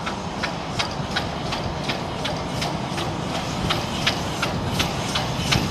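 Steam locomotive hauling a passenger train at low speed, with a steady low rumble and a sharp, regular beat about three times a second.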